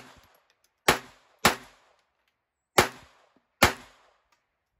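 Four pistol shots fired as two pairs, the second pair slightly slower than the first, each crack followed by a short ringing tail.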